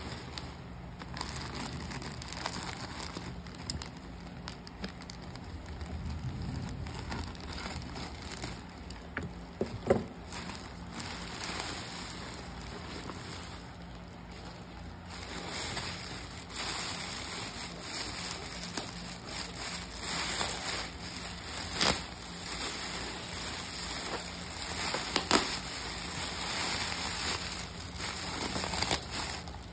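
Plastic packaging crinkling and rustling under hands: a plastic mailer being opened and an air-cushion bubble-wrap sleeve being handled, with scattered sharp crackles, busier and louder in the second half.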